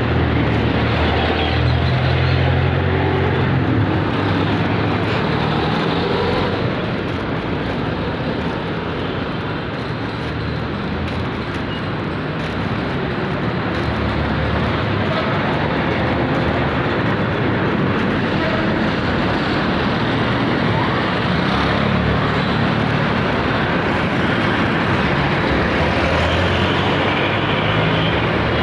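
Steady street traffic noise: vehicle engines running and passing along a city road, with a strong low rumble that eases slightly a few seconds in and builds again.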